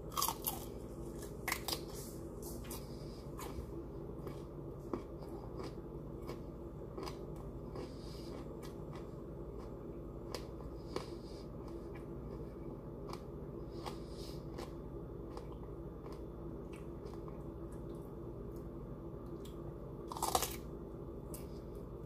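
A person biting and chewing broccoli stalks: scattered sharp crunches, the loudest near the start and again about twenty seconds in, over a steady low hum.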